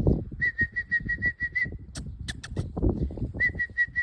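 A bird calling: two runs of quick, even, high whistled notes at one pitch, with rustling and a few sharp clicks in between.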